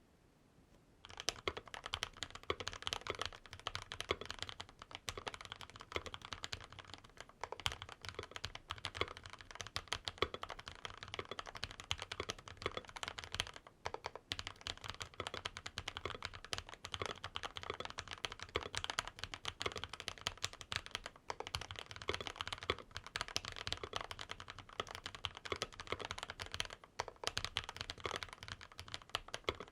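Continuous fast typing on a mechanical keyboard with Gazzew Boba LT long-pole linear switches, a steel plate, PBT keycaps, a Poron-dampened case and a tape mod, giving deep, thocky keystrokes. The typing starts about a second in and runs on with only brief pauses.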